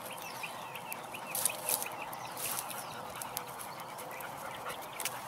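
Birds chirping outdoors in quick, short rising notes, several a second, with a few sharp clicks between them.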